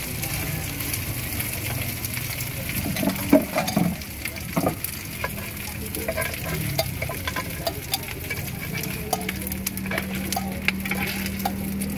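Cimin and cilor frying on a round multi-hole griddle pan, sizzling steadily, with the repeated scrape and tap of the cook's utensil as he stirs and turns the pieces.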